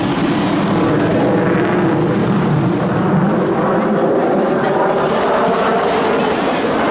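Eurofighter Typhoon's twin jet engines roaring steadily overhead in flight.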